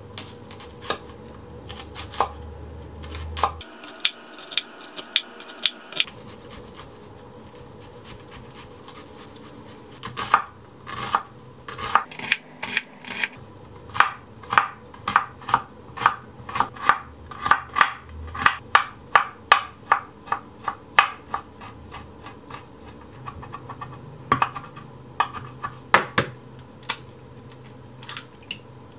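Kitchen knife slicing carrot on a wooden cutting board, each cut a sharp knock on the board. The cuts come sparsely at first, then in a steady run of about two to three a second through the middle. Near the end come a few louder taps as eggs are cracked.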